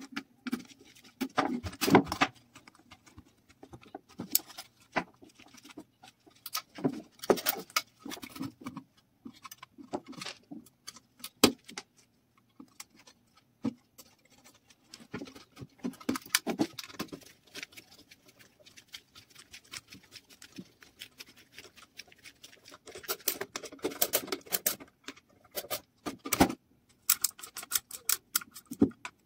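Hand-assembly of a sheet-metal heater base: irregular clicks, taps and short scrapes as a screwdriver drives screws into a steel bracket and metal parts are fitted and set down on a wooden table.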